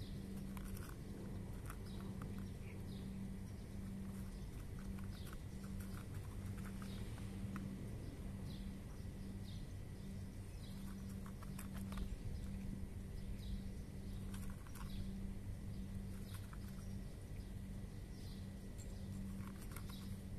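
A cat crunching dry kibble, short runs of crisp clicking chews with pauses between them. Birds chirp now and then, over a steady low hum.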